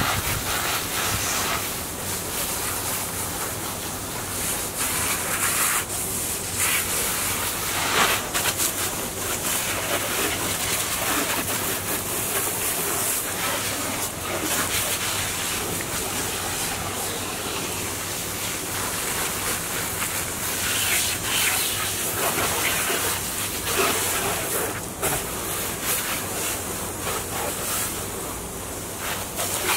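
Garden hose spray hissing and spattering on a personal watercraft's hull, rinsing off soap suds. The noise is steady and rises and falls in strength.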